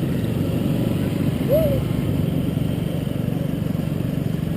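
Steady low rumble of a motor vehicle on the move, mixed with wind noise. A short call rises and falls in pitch about one and a half seconds in.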